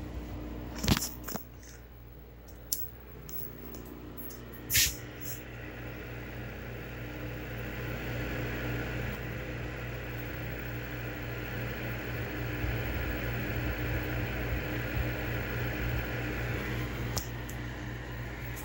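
Static hiss from a 1978 Hitachi portable color TV with snow on its screen, over a steady low hum. The hiss swells from about five seconds in and drops away near the end. There are sharp clicks about one second and five seconds in.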